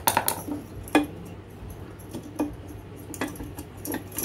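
Sharp plastic-and-metal clicks and clinks as an LED headlight bulb with a finned aluminium heat sink is twisted and worked loose from a motorcycle headlight reflector's bulb socket. There are about six irregular clicks, the loudest at the start and about a second in.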